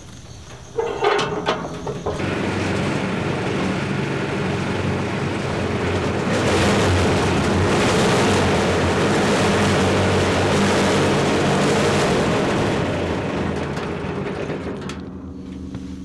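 Small engine of a rented portable cement mixer starting about two seconds in, then running steadily with the drum turning while it is tipped over to empty a batch of concrete. It gets louder midway and dies down near the end.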